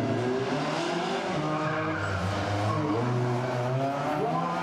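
Citroën C2 rally car's engine revving hard, its pitch rising and falling as the driver works the throttle through the course.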